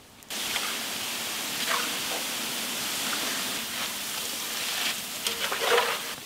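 Hot coconut oil sizzling steadily as boondi (drops of gram-flour batter) deep-fries in a large pan. The sizzle cuts in suddenly just after the start, and a few brief scrapes from the metal strainer sound through it.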